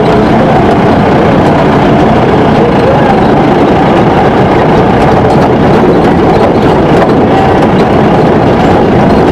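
Steady, loud engine and road noise of a vehicle driving on an unpaved dirt road, heard from inside its cabin.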